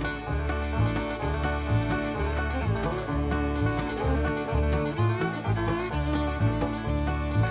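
Bluegrass-style background music: plucked strings over a steady, bouncing bass beat.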